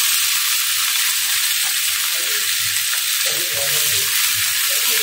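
Small fish in masala sizzling steadily in a steel kadhai on a low gas flame, with a spatula turning them in the pan.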